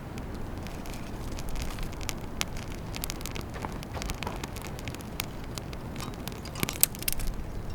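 Wood campfire crackling: irregular sharp pops and snaps over a steady low rumble, with one louder pop near the end.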